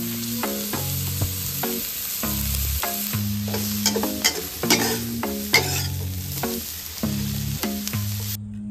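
Oyster mushrooms and egg sizzling in a hot hammered wok while a metal spatula stirs and scrapes, with repeated sharp clinks of the spatula against the wok. The sizzling cuts off just before the end.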